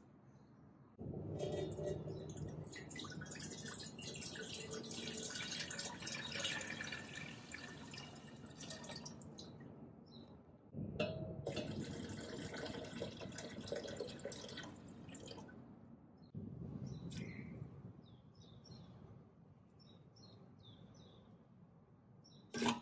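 Water poured from a glass jug into a stainless steel stockpot, splashing in two long pours and a shorter third. Near the end, a sharp knock as shallots drop into an empty steel pot.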